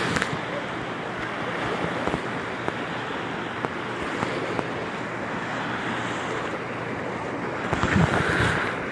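Wave pool water surging and breaking in a steady wash, briefly louder near the end.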